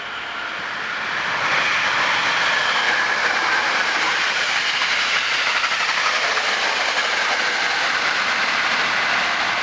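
Hankyu 9300 series eight-car train passing close by at speed: wheels clattering on the rails with a steady whine from its traction motors that slides slowly down in pitch. It grows louder over the first second and a half, then holds.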